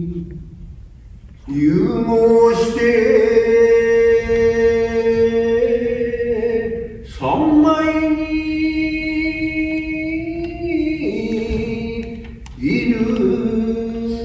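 Shigin, Japanese classical poem chanting: a voice holding long drawn-out notes in three phrases, starting about a second and a half in, about seven seconds in and near the end, each sliding up into its note.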